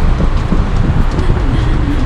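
Wind buffeting the microphone on a ship's open deck: a loud, steady low rumble with rushing.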